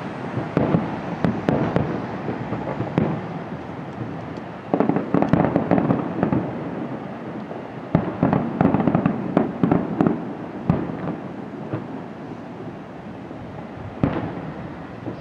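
Aerial firework shells bursting one after another: dense clusters of bangs and crackles, with a single loud bang near the end.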